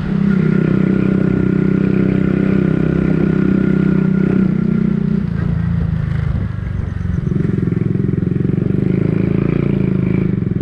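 Motorcycle engine running at a steady speed, easing off about halfway through and picking up again a couple of seconds later.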